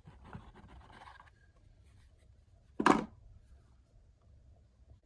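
Hands handling knife packaging: faint rustling of box and paper, then a single loud knock about three seconds in as something is set down or bumped.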